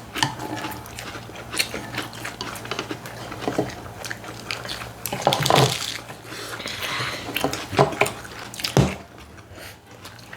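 Eating sounds close to the microphone: chewing and biting, with scattered clicks and clinks of cutlery against dishes.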